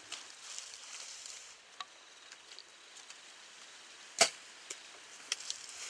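Compound bow shot: one sharp, loud crack of the released string about four seconds in, with a few faint clicks around it.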